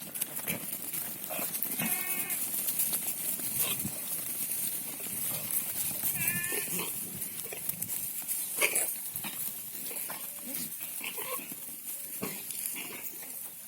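Sirohi male goats bleating: two short wavering bleats, about two seconds in and again about six seconds in, over scattered clicks and rustles.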